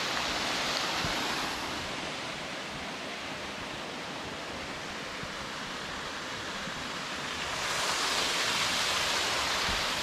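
Rushing water of a small waterfall: a steady hiss that eases a little after the first second and a half and swells again about three-quarters of the way through.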